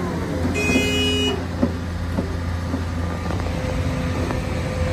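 Volvo EW210D wheeled excavator's diesel engine running steadily while the machine swings and moves its boom and bucket. A brief high squeal comes about half a second in, and a couple of sharp knocks follow soon after.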